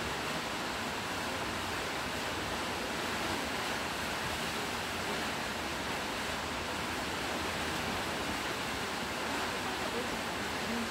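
Steady rush of a tall waterfall plunging into its pool, heard from the rock overhang behind the falls.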